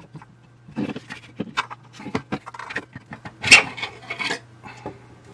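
Copper gyro case being worked off the gyro assembly and handled: irregular scraping and clinking of metal parts, with a louder clatter about three and a half seconds in.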